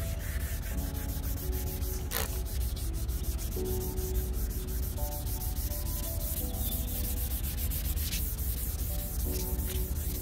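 Hand wet sanding of a plastic headlight lens with 600-grit sandpaper, a steady run of quick back-and-forth rubbing strokes, with background music playing underneath.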